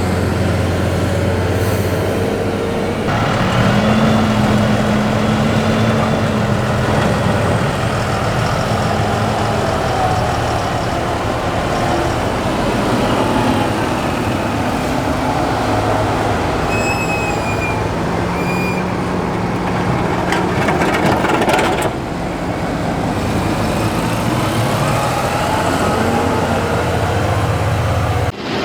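Heavy diesel farm machinery (tractors and a forage harvester chopping corn) running steadily under load. The engine sound shifts abruptly about three seconds in and again near the end, and a few short high squeaks rise over it about two-thirds of the way through.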